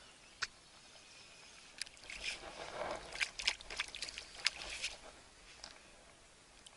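A small hooked fish splashing at the water's surface as it is drawn to the shore, a run of sharp splashes and slaps between about two and five seconds in.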